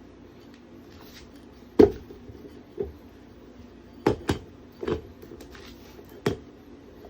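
Tire levers knocking and clacking against a scooter wheel rim while an 11-inch tubeless tire is levered over the rim: about six sharp knocks spread irregularly, the first the loudest, over a steady faint hum.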